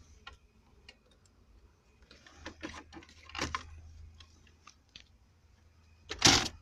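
Small clicks and rustles of hands working on the loose wire of a fuel-pump kill switch, with one louder short burst of noise near the end.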